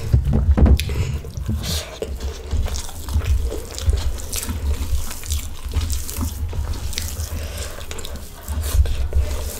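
Wet squishing and clicking of cooked white rice and potato fry being mixed and scooped by hand on a metal plate, with chewing as mouthfuls are eaten, over a low, uneven rumble.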